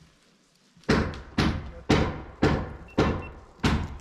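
Hammer blows during roof framing, six strikes at a steady pace of about two a second, starting about a second in, each one sharp and then dying away.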